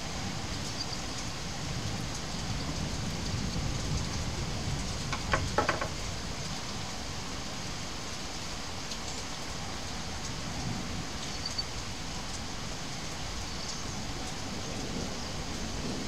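Steady rain falling, an even hiss, with a short cluster of sharp taps about five seconds in.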